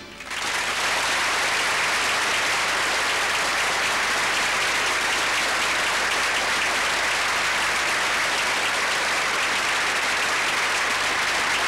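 Audience applauding at the end of a song, breaking in all at once and holding steady and loud.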